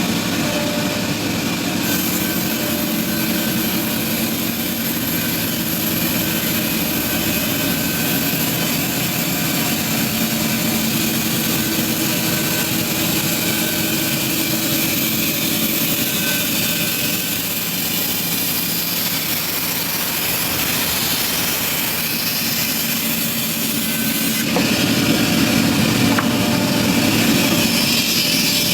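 Sawmill bandsaw running, a steady mechanical drone that grows louder and heavier about 24 seconds in.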